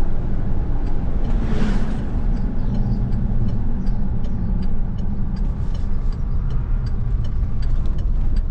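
A vehicle driving: steady low rumble of engine and road noise.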